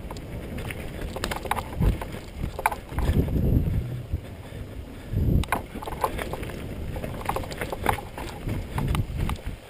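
Mountain bike riding fast downhill over dirt, rocks and wooden planks: tyres rumbling and the bike rattling and clattering, with heavy thumps over bumps, the loudest about three seconds in and again about five seconds in. There is some wind buffeting on the bike-mounted microphone.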